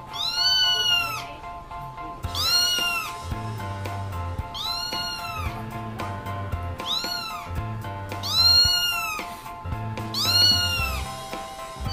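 Kitten meowing: six high, arching meows about every two seconds. Background music with held notes and a low beat plays underneath.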